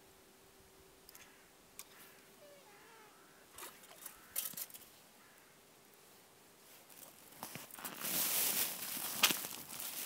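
A plastic carrier bag crinkling and rustling close to the microphone, starting about three-quarters of the way through, after a quiet stretch with a few small clicks.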